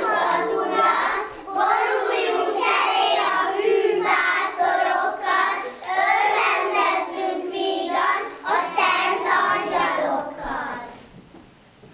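Kindergarten children singing a song together. The singing stops near the end.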